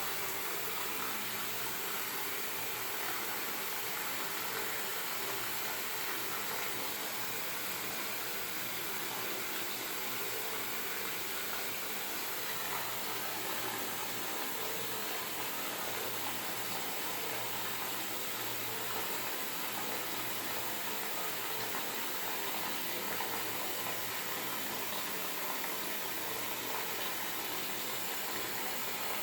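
Running water from a tap or shower, a steady even rush.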